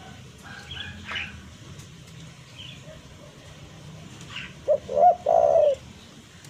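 Spotted dove (tekukur) cooing: one phrase of a short note, a doubled note and a longer drawn-out coo, about three-quarters of the way in. It is the tekukur's challenge call, the kind used to draw in rival doves.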